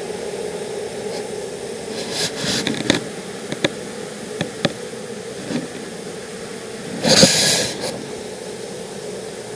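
Honeybees humming steadily from an open hive, with a few sharp clicks and knocks as the wooden frames are handled, and a short burst of hiss about seven seconds in.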